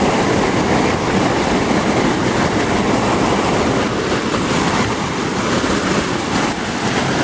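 Flash-flood water rushing in a fast, muddy torrent: a loud, steady, unbroken noise.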